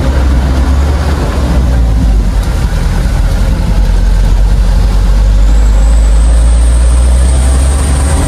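Truck engine running with a steady deep drone, heard from inside the cab while driving. A thin high whistle joins about five and a half seconds in.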